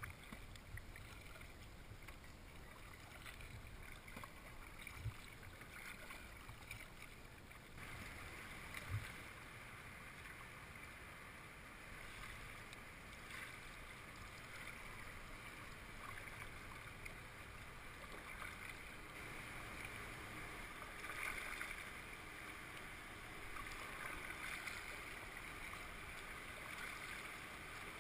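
Kayak paddling on a river, with a few low thumps in the first few seconds. From about eight seconds in, a steady rush of moving water builds and grows louder as the kayak enters churning outflow current.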